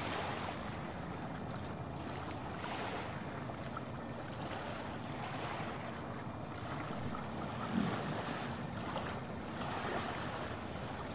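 Small waves washing onto a sandy shore, swelling every couple of seconds, with wind buffeting the microphone.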